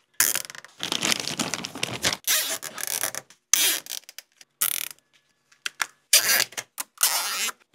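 Plastic zip ties being pulled tight around a small cable, making several zipping ratchet sounds in short spurts with pauses between.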